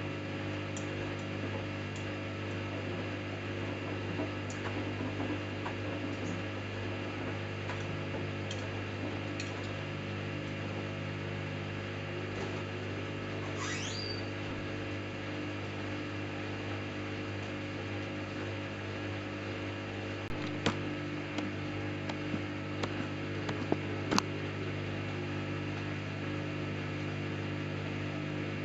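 Samsung Eco Bubble washing machine running a 40°C cotton cycle, with a steady motor hum. A few sharp clicks come near the end.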